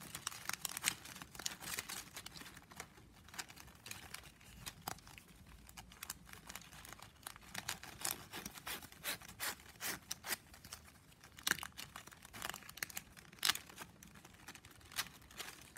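9 mm plastic strapping band crackling and rustling as a strip is bent and threaded by hand through a woven mat of the same band, with many small sharp clicks and scrapes.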